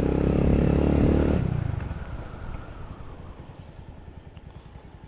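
Motorcycle engine held at a rev, then dropping back about a second and a half in to a low, evenly pulsing idle.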